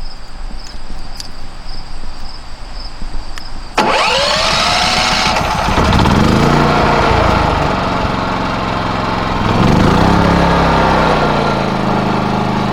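Westinghouse dual-fuel portable generator starting up about four seconds in, then settling into a steady run. Its engine pitch sags and recovers twice as electrical load comes on, an air conditioner kicking in. Before it starts there are a few footsteps and clicks.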